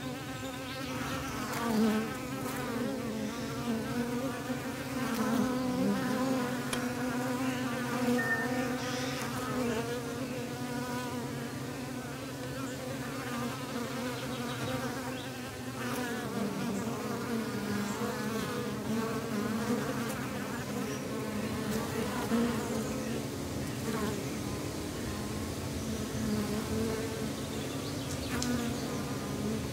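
A colony of honeybees buzzing around an opened hive: a steady, dense hum of many bees at once, their overlapping wingbeat tones wavering slightly in pitch.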